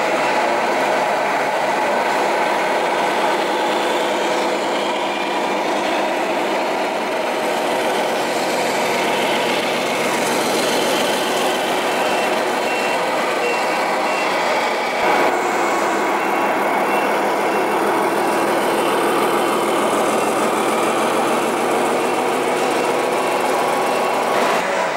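Electronic sound modules in radio-controlled model trucks playing a steady diesel engine note, with a reversing beeper sounding for a few seconds near the middle. The engine note shifts and glides in pitch a little past halfway.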